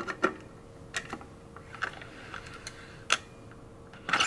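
Thru-axle being worked loose and slid out of a RockShox Lyrik fork's front dropouts to free the wheel: a string of sharp clicks and small metal ticks, with a quick cluster of clatter near the end.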